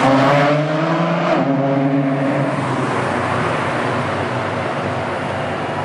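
A supercar's engine revving loudly in a road tunnel. Its note is strongest over the first couple of seconds, shifting in pitch partway through, then gives way to steady road and traffic noise.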